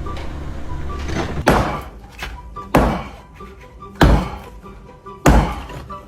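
Music with four heavy thuds, evenly spaced about one and a quarter seconds apart, each fading quickly.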